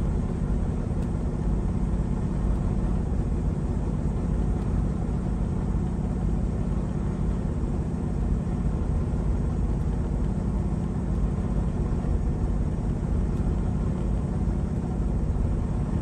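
Detroit DD15 inline-six diesel engine running steadily at about 700 rpm with its air filter off. Its injectors are being cut out one cylinder at a time in a cylinder cutout test, and each cut brings only a faint misfire: the injectors are all working.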